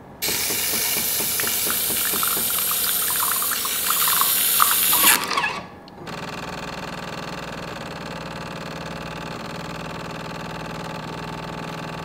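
Jura S8 espresso machine's fine foam milk frother steaming milk into a glass for about five seconds: a loud hiss with irregular sputtering, the frother lever set slightly closed for steamed rather than frothy milk. It stops suddenly, and a quieter, steady mechanical hum follows as the machine makes the espresso shot.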